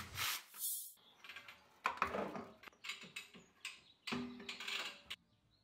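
Irregular metal clinks, scrapes and rattles as a Porsche over-axle exhaust pipe, with its gas particulate filter still attached, is worked out past the suspension and brake. The sounds stop about five seconds in.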